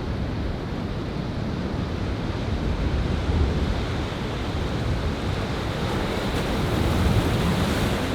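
Ocean surf breaking on a beach, a steady wash that swells near the end as a wave breaks, with wind rumbling on the microphone.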